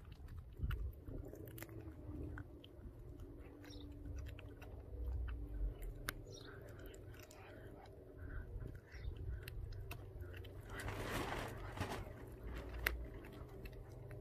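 A Pomeranian chewing and crunching a raw duck foot, with many sharp crunches between slower chews. A short rush of noise about eleven seconds in.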